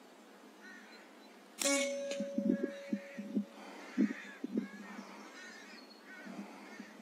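A sudden sharp crack about a second and a half in, with a second sharp sound half a second later, then a run of short bird calls.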